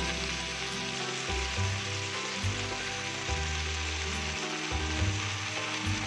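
Chopped spinach sizzling in a pan of hot mustard oil with frying vegetables, a steady hiss, over soft background music with low bass notes.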